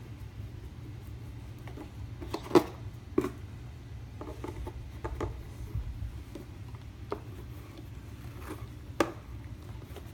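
Scattered clicks and taps of a toy spider being worked loose from its plastic packaging, the loudest about two and a half seconds in, over a steady low hum.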